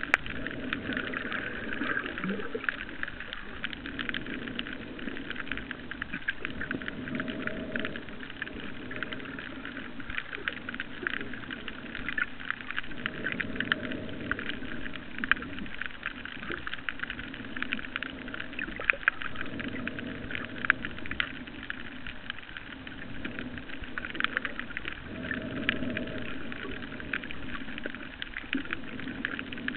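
Underwater reef ambience: a dense, steady crackle of fine clicks, with a low rushing sound that swells and fades every few seconds.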